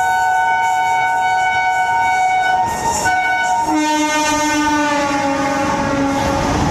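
Indian Railways electric locomotive sounding its horn in one long held chord as it runs through the station at full speed. About four seconds in, the chord drops in pitch as the engine passes. Near the end the horn fades into the rising clatter of freight wagons on the rails.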